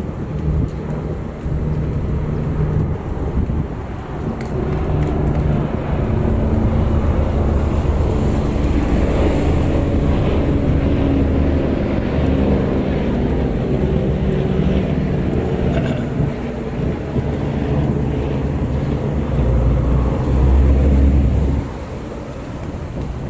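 Motor vehicle engine running with a loud, low rumble that drops away suddenly about 22 seconds in.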